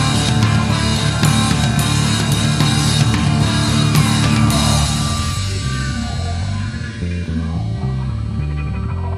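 Progressive rock band playing: guitars, bass and drums with cymbal crashes. A little past halfway the drums and cymbals drop away, leaving a stepping bass line with sparse guitar notes.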